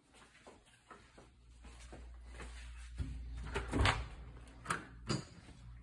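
A closet door being handled and shut: a series of knocks and bumps, the loudest clustered around the middle, over a low rumble of the phone being moved.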